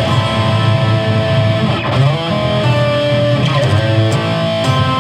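Distorted Schecter electric guitar playing sustained chords, moving between an E7 dominant seventh (the V7) and A minor (the i). The chord changes about three times, each change a V7-to-i cadence resolving to the home chord of A minor.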